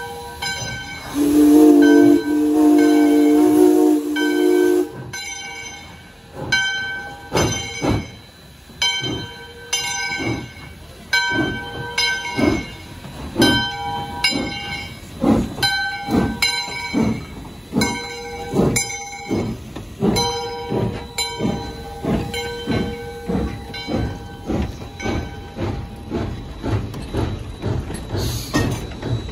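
A steam locomotive sounds one long chime-whistle blast of several notes at once, beginning about a second in. Then its bell rings steadily, about once a second, with steam hissing as the train pulls by.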